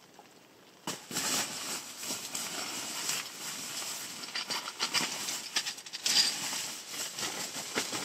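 Tent fabric rustling and crumpling as it is gathered up and folded, with many short, sharp crackles. It starts suddenly about a second in.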